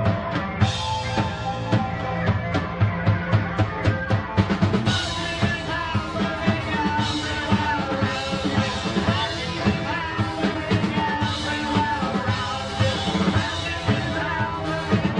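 Live rock band playing: electric guitar, bass guitar and a drum kit, with fast, hard drum hits throughout.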